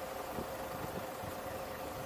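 Steady car and road traffic noise, with a constant high hum over it.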